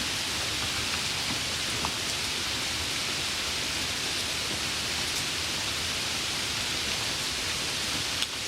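Heavy rain falling steadily: a dense, even hiss with a few separate drop ticks, and one sharp click near the end.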